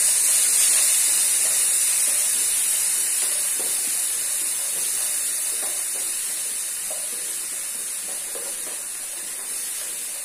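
Green peas sizzling in hot spiced oil in a frying pan as they are stirred in with a wooden spatula: a steady hiss that slowly fades.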